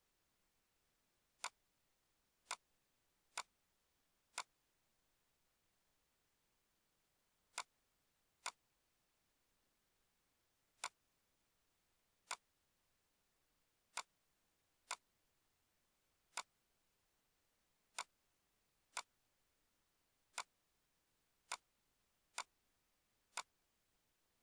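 Computer mouse clicks: about seventeen single, sharp clicks at uneven intervals, sometimes in quick pairs, over near silence.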